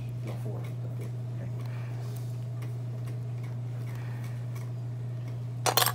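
A steady low hum with faint, scattered ticks as metal forceps pick inside a fish's head toward the otolith. A short, loud clatter comes near the end.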